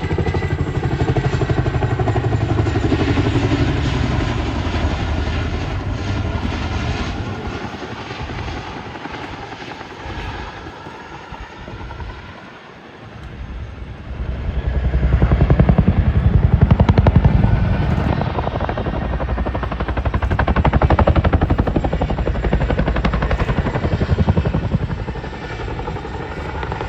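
Boeing Chinook tandem-rotor helicopter flying a display, its rotor chop pulsing fast and steadily. It fades away a little before halfway through, then swells back to its loudest a few seconds later as it comes round again.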